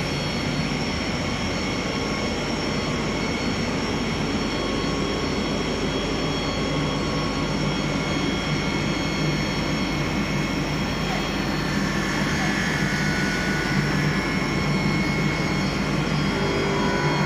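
Steady running noise of a large PVC pipe extrusion line: a continuous machine din with a low hum and several high whines, holding the same level throughout.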